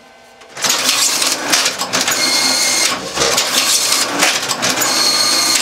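Polychem GP44 strapping machine running a strapping cycle once its activation switch is pressed: starts suddenly about half a second in, a loud continuous mechanical whirring and clattering, with a thin high whine twice, once near the middle and once near the end.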